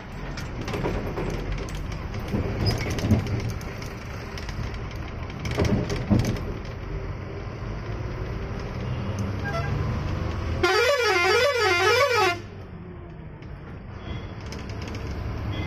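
Engine and road noise inside the cab of a twelve-wheel Ashok Leyland 3118 truck on the move. About eleven seconds in, a loud warbling horn sounds for nearly two seconds, its pitch swinging up and down several times.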